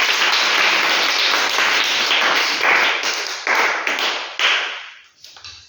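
Many hands clapping at once, a group applauding, dying away about five seconds in.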